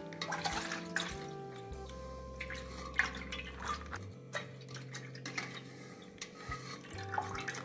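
Milk poured from a plastic pouch through a plastic mesh strainer into a large aluminium pot, trickling and dripping, with scattered small splashes and clicks. Soft background music with slow held notes plays underneath.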